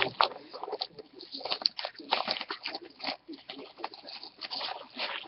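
Irregular crinkling and rustling of trading-card packaging and cards being handled, in quick short crackles.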